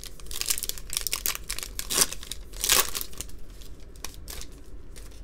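Foil trading-card pack wrapper being torn open and crinkled by hand, a run of sharp crackles, loudest about two seconds in and again a moment later.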